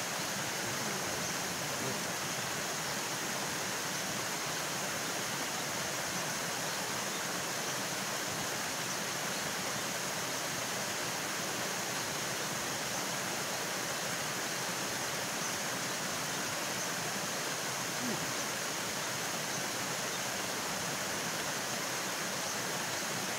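Steady rush of water from a small waterfall pouring over a concrete river weir.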